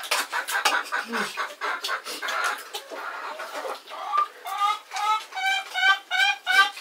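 Chickens clucking: a run of rapid short calls, then from about four seconds in a regular series of clearer, pitched calls, several a second.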